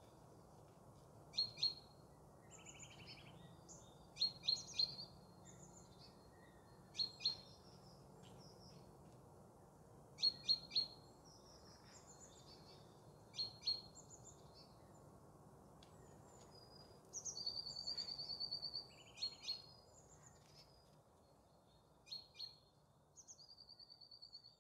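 Bohemian waxwings calling: high, thin ringing trills, with clusters of short sharp notes every few seconds and a longer trill about 17 seconds in and again near the end, over a low steady background noise.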